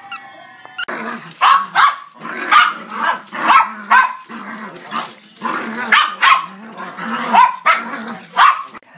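A small dog barking over and over, about a dozen barks spread over eight seconds, starting about a second in and stopping just before the end, with a lower steady sound running between the barks.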